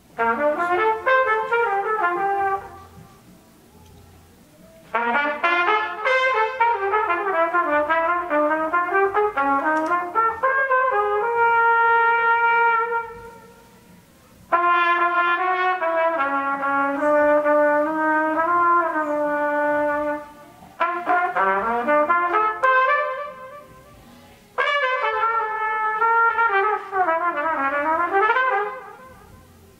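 A trumpet playing solo phrases with gliding, sweeping runs and a few long held notes. The phrases are separated by short pauses of a second or two.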